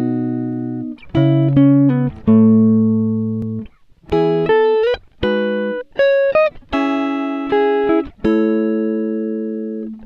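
Background music: a guitar playing slow, ringing notes and chords that fade out before the next is struck, with a few notes bent or slid upward in pitch.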